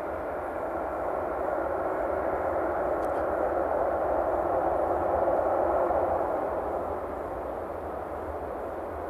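Airbus A319-100 airliner noise: a steady rushing sound that swells for a few seconds and then eases back.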